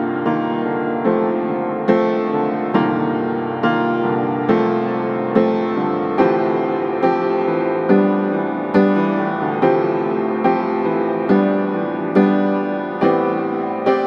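Background piano music: a slow, steady run of notes and chords, each struck a little more than once a second and left to ring and fade. No river sound is heard.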